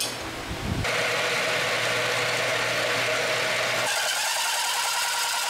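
Angle grinder shaping a steel plate clamped in a vise: a steady grinding sound starting about a second in. About four seconds in it changes abruptly to a milling machine cutting a lightening hole through steel plate with a hole saw, a rapid fine chattering.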